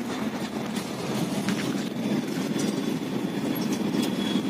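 Nissan UD heavy truck's turbocharged diesel engine running steadily as the truck drives slowly, heard from inside the cab, with a faint steady high whistle from the turbocharger.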